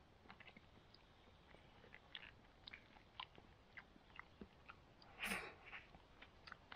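Faint close-up eating: chewing with small scattered clicks of a spoon, and one short noisy rustle about five seconds in.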